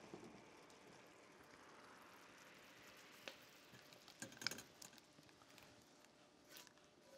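Faint pattering of hot pan sauce being poured from an enamelled skillet through a fine-mesh strainer into a saucepan, with a few light clinks of the pan against the metal strainer, the loudest cluster about four and a half seconds in.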